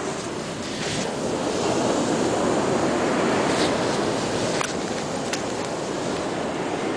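Atlantic Ocean surf breaking and washing up the beach: a steady rush of noise that swells a little a couple of seconds in.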